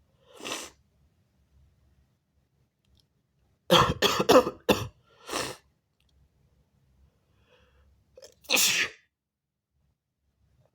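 A person sneezing: a short burst near the start, then a rapid run of loud sneezes about four seconds in, the loudest part, and one more sneeze near the end.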